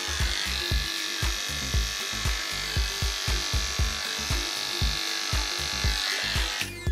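Electric grooming clippers buzzing steadily as they trim the hair around a dog's eyes, with a brief break near the end, over background music with a steady beat.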